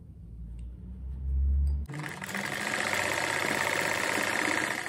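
A low rumble for the first two seconds, then an electric sewing machine stitching a seam at a steady speed, stopping just before the end.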